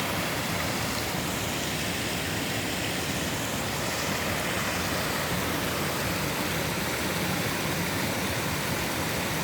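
Mountain stream rushing and splashing over rocks, a steady, even flow of water.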